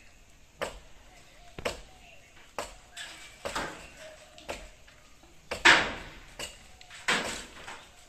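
Machete-type blade chopping into a coconut palm, a sharp strike about once a second, the loudest a little past halfway.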